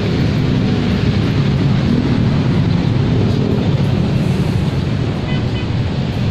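Steady, loud low rumbling noise with no clear single event.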